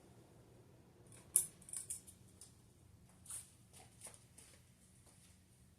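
Ceiling fan with an Emerson K55 motor spinning down after being switched off: a faint low hum with a few light clicks and ticks, the sharpest about a second and a half in.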